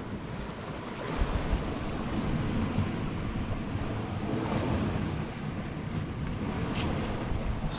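Sea surf washing in steadily, with wind on the microphone.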